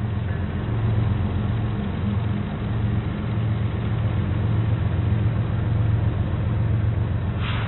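Diesel locomotive engine running with a steady low drone, and a short hiss near the end.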